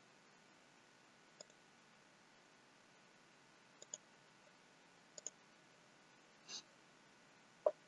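Computer mouse buttons clicking over faint background hiss: single clicks and quick double clicks a second or two apart, with a louder single click near the end.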